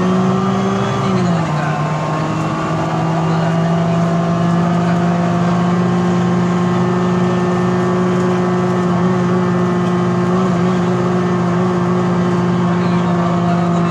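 Mercedes-Benz O405G articulated bus's drivetrain, with its Voith DIWA 854 automatic gearbox, running under way with a loud, steady, pitched drone. The drone drops in pitch about a second in and then holds. The uploader takes this weird sound for the sign of a bad engine.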